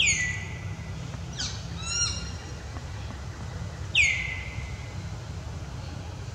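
Bird calls: two sharp calls, each dropping steeply in pitch and then holding a steady note, about four seconds apart, with a quick run of short chirps between them. A steady low hum runs underneath.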